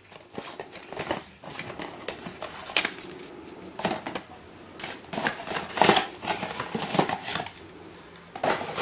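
Unboxing a puzzle box: scissors cutting the packaging, then a paper instruction sheet rustling and crinkling, with irregular handling clicks that are busiest and loudest in the middle.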